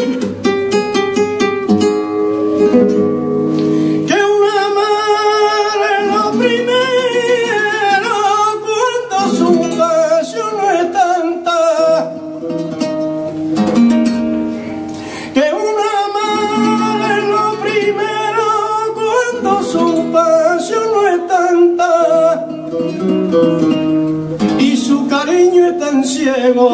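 Flamenco singing: a male cantaor draws out long, wavering melismatic phrases over a plucked acoustic guitar. The guitar plays alone for the first few seconds and again briefly near the middle, between the sung phrases.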